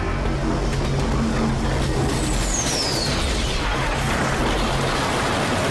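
Sound effects of a speeding cartoon train: a loud, steady rumble with a low hum, and a high whine that glides downward about two seconds in.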